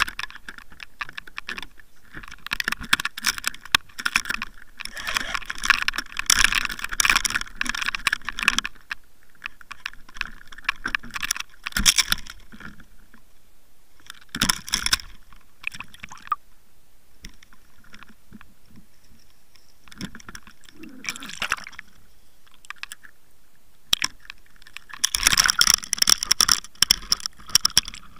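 Water splashing and sloshing at the surface against an underwater camera housing, heard as bursts of crackly clicking and gurgling with quieter gaps between. The longest bursts come at the start and again near the end, as the camera goes under.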